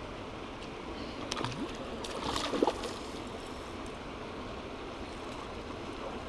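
Steady rushing of flowing stream water, with a few brief knocks and a short louder burst about two and a half seconds in.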